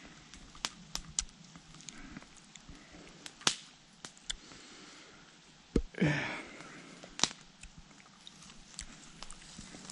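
Smouldering campfire crackling: scattered sharp pops and snaps at irregular intervals, with a short rustling noise about six seconds in.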